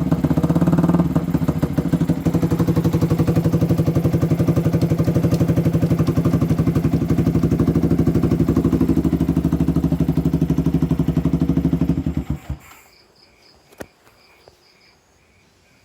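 Yamaha New Vixion's single-cylinder engine idling through an exhaust fitted with a three-setting DB killer baffle, with steady, even exhaust pulses. About twelve seconds in the engine is switched off and the pulses slow and stop, leaving crickets chirping and a couple of faint clicks.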